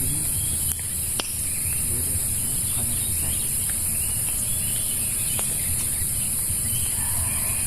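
Steady high-pitched insect chorus, with a low steady rumble underneath and two faint clicks about a second in.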